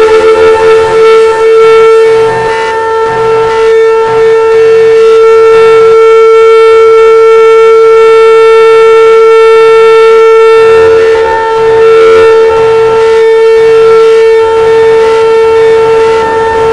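Custom-made emergency alert alarm: a loud siren tone held at one steady pitch, rich in overtones.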